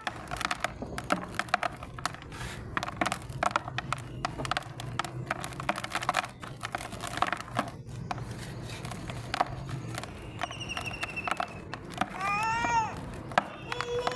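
Soft mud being crumbled: a dense run of small, irregular crackles and crunches. Near the end the crumbling fades, and a high whistle-like tone and then a rising-and-falling, voice-like wail take over.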